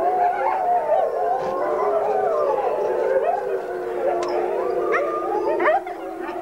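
Wolf pack howling in chorus, many voices overlapping and gliding up and down in pitch, with a few short rising yips about four to five seconds in.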